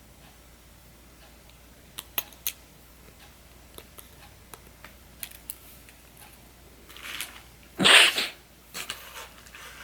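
Small sharp clicks as the display's ribbon-cable connectors are unclipped from an iPhone 6s Plus, three close together about two seconds in and fainter ticks after. About eight seconds in there is a louder, short rushing burst.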